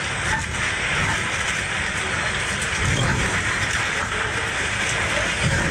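Cabin noise of a fast passenger ferry underway in 2-metre waves: a loud, steady rush of engine drone and water against the hull, with low thumps about three seconds in and near the end.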